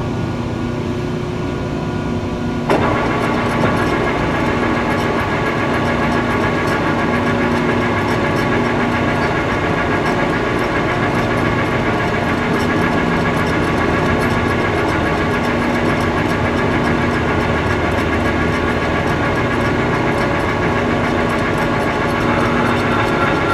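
Monarch metal lathe running steadily, its motor and gearing humming. About three seconds in the sound grows louder and fuller and stays that way.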